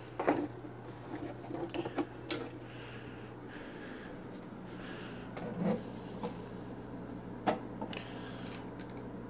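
Handling noise from plastic toy figures being picked up and set down on a kitchen counter: scattered light knocks and clicks, a few louder ones, over a steady low hum.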